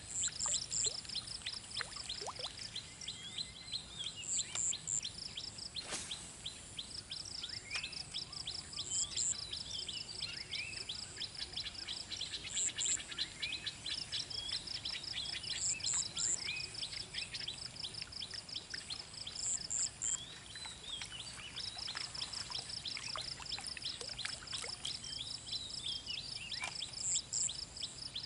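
Several birds calling and chirping in open country, with a high double note repeating every few seconds over a fast, steady pulsing trill. A single sharp click about six seconds in.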